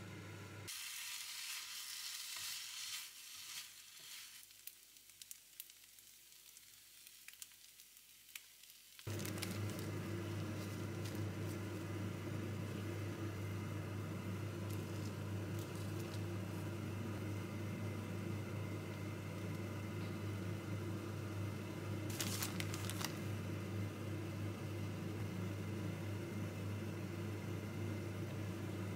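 Kimchi rice sizzling in a nonstick frying pan as a spoon stirs it. It cuts off abruptly about nine seconds in, giving way to a steady low hum, with a brief crackle of handling partway through.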